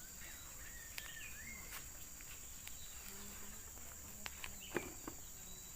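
Steady high-pitched drone of insects such as crickets, with a few faint chirps in the first couple of seconds. Several light clicks or taps come near the end, the sharpest just before it.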